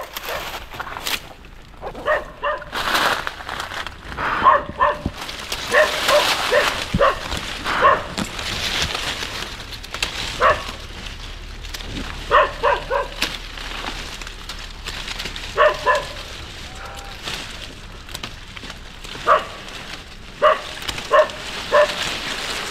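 A dog barking in short, repeated barks, singly and in quick pairs and threes, over a constant crackling rustle.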